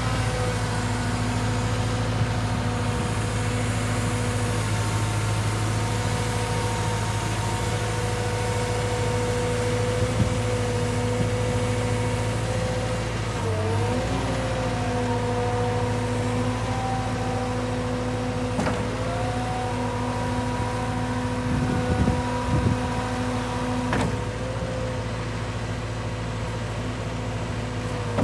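Caterpillar M315D wheeled excavator's diesel engine running at a steady speed while the boom and bucket are worked. About halfway the pitch briefly dips and recovers, and a few sharp clicks or knocks sound here and there.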